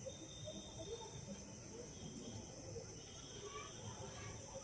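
Crickets and other night insects calling: a steady high trill, with a second insect chirping about twice a second.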